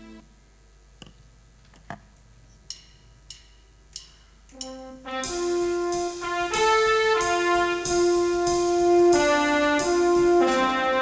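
A few soft taps, then music begins about four and a half seconds in: brass-toned instruments playing long held chords that change every second or so.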